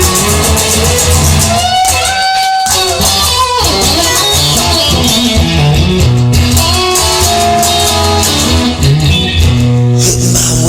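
Rock music instrumental: a lead electric guitar plays sustained, bending notes over a bass guitar and drums.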